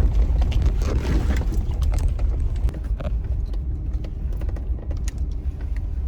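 Jeep crawling over a rough, rocky off-road trail: a steady low rumble with many knocks and rattles from the bumps.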